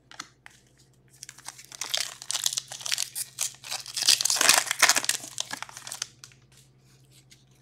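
A foil trading-card pack is torn open and its wrapper crinkled, with the cards handled. The crackling runs for about five seconds, then stops.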